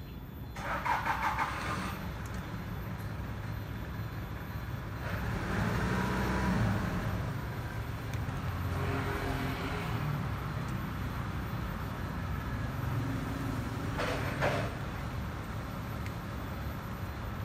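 Motor vehicle engines in the street: a steady low rumble, with a short run of rapid pulses about a second in and a swell as a vehicle passes about five seconds in.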